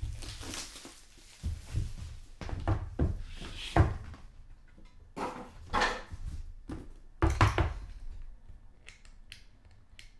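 Cardboard trading-card boxes and their packaging being handled on a table: a series of thunks and knocks with rustling between, the loudest about four seconds in and again past seven seconds, and a few light clicks near the end.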